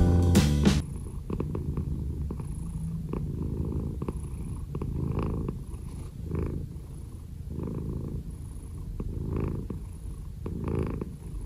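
A 15-year-old calico cat purring steadily while its head is stroked, the purr swelling with each breath every second or so. Background music cuts off under a second in.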